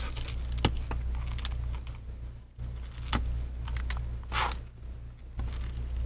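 Shattered iPad screen glass crackling and crunching as a pry tool scrapes and pries it off the frame's adhesive. There are irregular sharp clicks and a few short scraping strokes, over a steady low hum.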